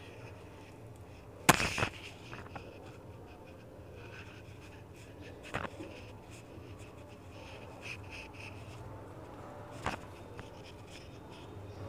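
A kitchen knife scoring a slab of set kalakand in a paper-lined sweet box, a soft crumbly scraping, with a few sharp knocks. The loudest knock comes about one and a half seconds in, with two more near the middle and near the end.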